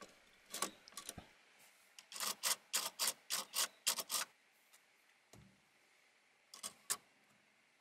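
Light plastic clicks and taps from a 3D-printed phone mount being clipped onto a car air-vent slat and handled: a quick run of about eight clicks a couple of seconds in, then a few more near the end.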